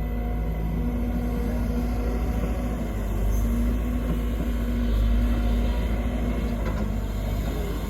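Sumitomo SH210 excavator's diesel engine running steadily with a deep rumble.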